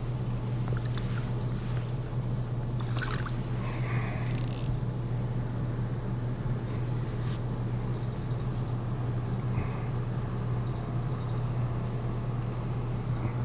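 Steady low hum of a boat motor running, with a few brief clicks in the first five seconds.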